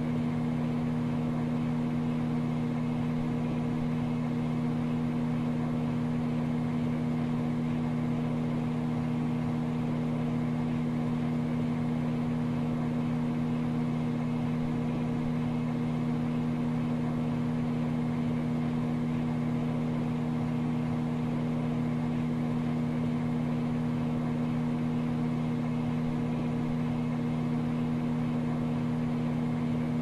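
Microwave oven running: a steady, unchanging hum.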